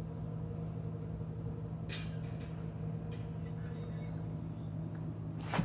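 A steady low mechanical hum, with sharp clicks from the plastic quick-release buckle and strap being handled: one about two seconds in and a louder one near the end.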